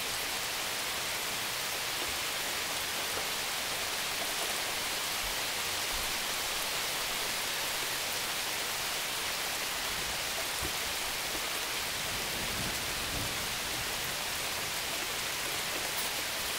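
Steady thunderstorm rain falling on lawns, trees and a wet street, an even hiss that neither builds nor fades.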